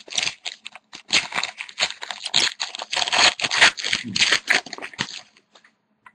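Foil wrapper of a hockey card pack being crinkled and torn open, a dense irregular crackling that stops about five seconds in.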